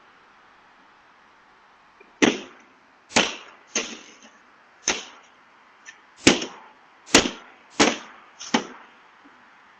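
Eight loud, sharp bangs at uneven intervals, each with a short fading ring, picked up by a doorbell camera's microphone.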